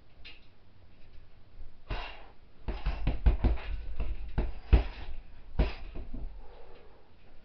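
Wrap-covered fists and knee striking a hanging heavy punching bag: a string of about nine dull thumps, several in quick succession around three seconds in, then single hits.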